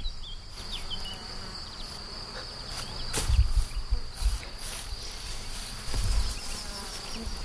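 Insects chirring in a steady high trill, a summer cricket chorus of the background ambience. A couple of low thumps or rumbles come about three seconds in and again near six seconds.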